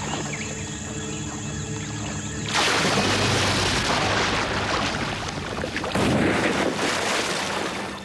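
Sustained dramatic music, then about two and a half seconds in a sudden loud splashing and churning of water that runs for several seconds and eases near the end.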